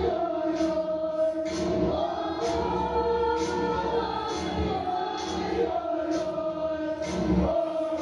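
Choral music: a choir singing long held notes that change pitch every second or two.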